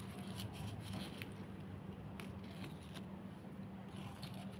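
Faint rustling and light ticks of leaves and twigs as hands move through a potted citrus tree, over a steady low hum.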